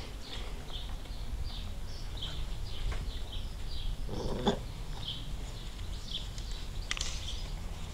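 German shorthaired pointer puppies play-fighting, with one short, louder puppy cry about halfway through. A steady run of short high chirps, about two a second, goes on throughout.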